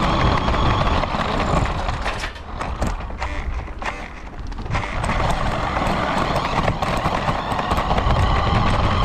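Radio-controlled car driving, heard from a camera mounted on the car itself: dense running and rolling noise. The noise drops off for a couple of seconds about two seconds in, then comes back at full level.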